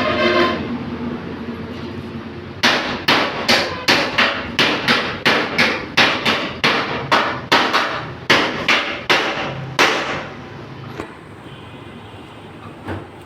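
Hammer beating out dents in the accident-damaged sheet-metal body panel of a Suzuki Alto: a run of about twenty sharp metal strikes, roughly three a second, starting a few seconds in and stopping about ten seconds in.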